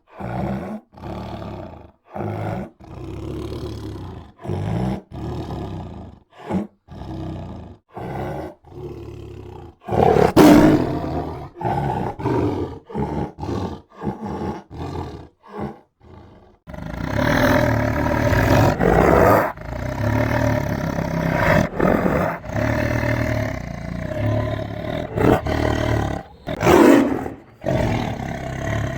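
A tiger roaring and growling: at first a quick series of short, separate roars with brief gaps between them, then louder calls, and from about two-thirds of the way in a nearly continuous, dense stretch of roaring.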